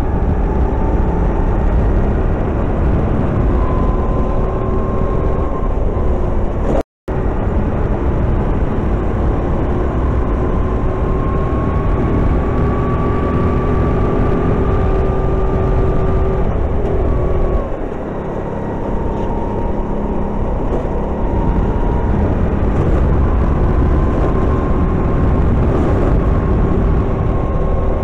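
Go-kart engine heard from on board under heavy wind rumble. Its note climbs slowly as the kart accelerates, dips about two-thirds of the way through as the driver lifts off, then climbs again. The sound cuts out completely for a split second about seven seconds in.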